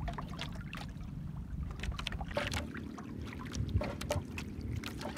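Steady low rumble of wind and water around a small wooden outrigger boat, with scattered light clicks and taps as a fish is unhooked from a longline.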